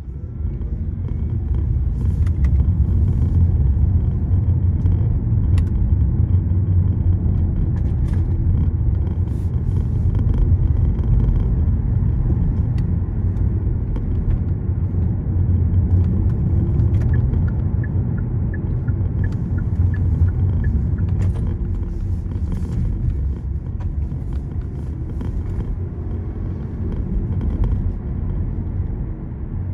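Car driving along a road, a steady low rumble of tyres and engine, with a few short knocks. A little past the middle, a short run of faint, evenly spaced ticks sounds for a few seconds.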